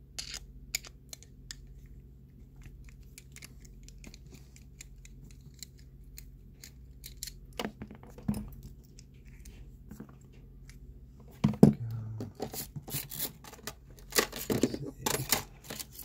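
Light metal clicks and scrapes of an American Lock 5260 padlock being taken apart with a screwdriver, with a louder run of clinks and rattles in the last few seconds.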